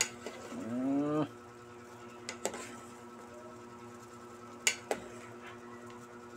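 Metal ladle clinking against the side of an aluminium soup pot while stirring, with a few sharp clinks around two and a half seconds in and a close pair near five seconds. A short rising call is heard just under a second in, over a faint steady hum.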